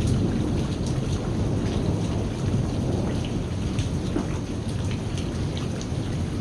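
Steady heavy rain with scattered individual drop ticks, over a continuous low rumble of thunder.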